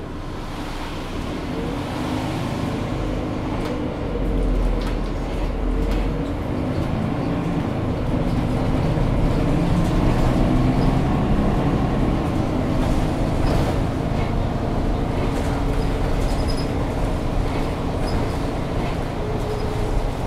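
Mercedes-Benz O530 Citaro city bus's diesel engine running, heard from inside the passenger compartment. Its drone wavers up and down in pitch, and the overall noise builds over the first several seconds, with a deep rumble swelling around the fourth to sixth second.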